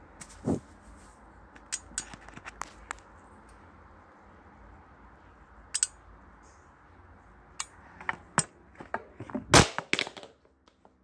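Scattered light taps and knocks from cats moving about, then a loud thump with a few clatters near the end as a phone camera is knocked to the floor.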